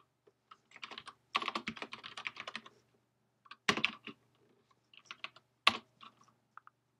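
Typing on a computer keyboard: a fast run of keystrokes about a second in, then scattered single key presses, two of them noticeably louder.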